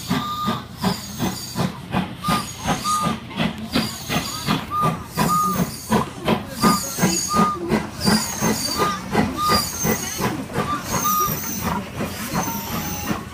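Steam locomotive chuffing as it pulls its train, a steady run of exhaust beats several a second over a hiss of steam.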